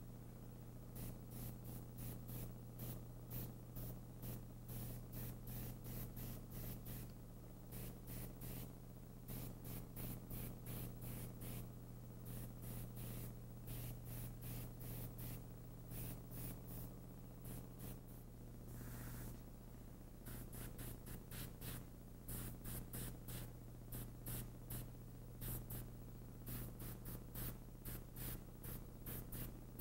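Bottle-fed airbrush spraying yellow paint in many short hissing spurts as the trigger is pressed and released, with one longer spray about two-thirds of the way through, over a steady low hum.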